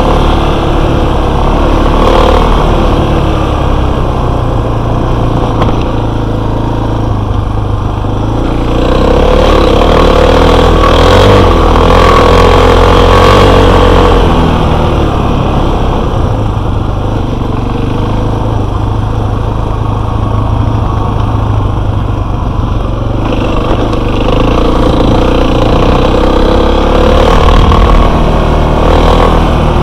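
Enduro motorcycle engine running with the throttle opened and closed. It grows louder twice, for several seconds at a time: about a third of the way in and again near the end.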